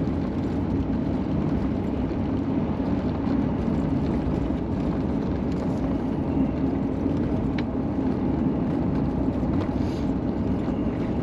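Steady in-cab engine and road noise from a Chevrolet cruising slowly on a snowy interstate, an even drone with no change in pace.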